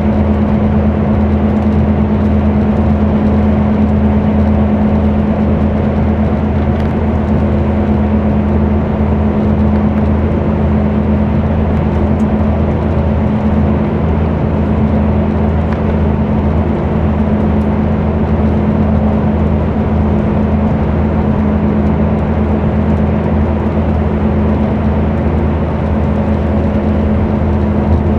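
Scania K124 coach's rear-mounted 12-litre six-cylinder diesel heard from inside the passenger cabin, cruising with a steady engine hum and constant road noise.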